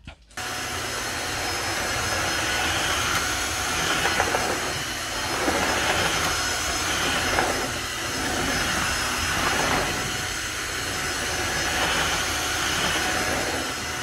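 Tineco Floor One S3 cordless wet-dry vacuum mop running, a steady motor-and-suction hiss that swells and eases about every two seconds as it is pushed back and forth, picking up dog hair along the edge of a cabinet.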